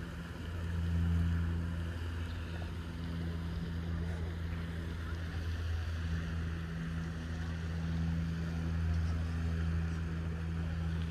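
Steady low drone of an engine or motor running, swelling and easing slightly in loudness, with a light hiss above it.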